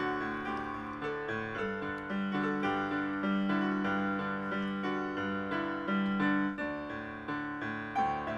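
Solo piano music: a slow, gentle piece with notes held about a second each over sustained lower notes.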